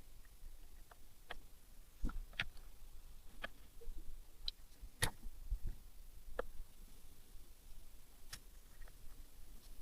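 Irregular light clicks and taps, about a dozen scattered through the stretch, the sharpest about five seconds in, as of small metal parts and hand tools being handled during engine work.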